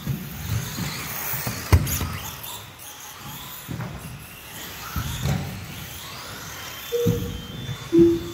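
Electric radio-controlled racing cars running on a carpet track. Their motors whine up and down, and there are sharp clacks as the cars land jumps or hit the wooden track borders, the loudest about two seconds in. Two short low tones come near the end.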